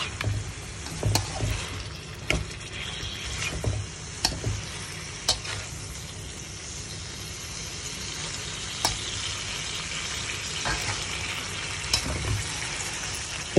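Beef, long beans, onion and tomato sizzling in thick dark curry sauce in a metal pan while a spatula stirs them, with a steady frying hiss. Sharp taps and scrapes of the spatula on the pan come at irregular intervals, every second or so at first and sparser later.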